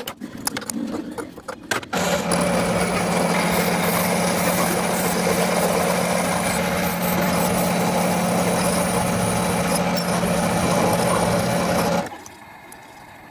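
Clicks and knocks of tool handling, then a metalworking power tool's motor runs steadily with a constant low hum for about ten seconds and stops near the end.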